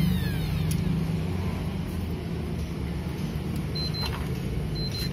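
A motor vehicle engine running with a steady low drone, the falling pitch of a passing vehicle fading out at the start. There are a few light clicks, and two short high beeps near the end.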